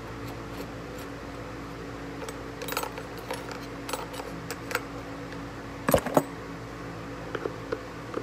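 Hard plastic clicks and knocks of a car headlight housing being pried and taken apart with a screwdriver and fingers, with a louder clatter about six seconds in. A steady hum runs underneath.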